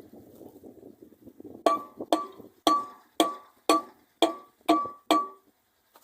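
A hammer striking metal eight times, about two blows a second, each with a short metallic ring. Before the blows there is a low rattling scrape.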